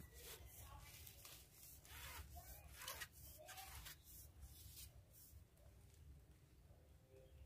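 Near silence: faint outdoor ambience, with a run of soft ticks over the first five seconds.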